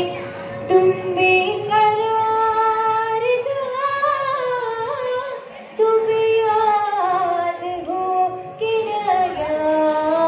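A girl singing an Urdu ghazal solo, holding long ornamented notes that slide between pitches, with short breaks between phrases. A steady drone note sounds beneath her voice throughout.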